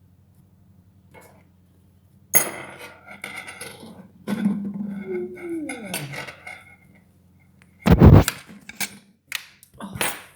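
A drawn-out yawn whose pitch slides down, set among knocks and clinks of dishes and cutlery; the loudest is a sharp clatter about eight seconds in, followed by a few lighter clicks.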